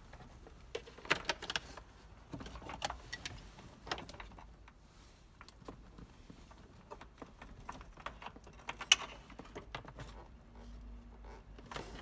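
Hands handling a wiring loom and plastic dash trim: scattered clicks, taps and light rattles, with a sharp click about nine seconds in.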